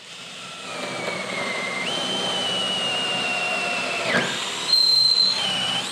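Cordless drill motor whining steadily under load as a brad point bit bores through a wooden tenon. The pitch steps up about two seconds in, dips briefly about four seconds in, then picks up again higher.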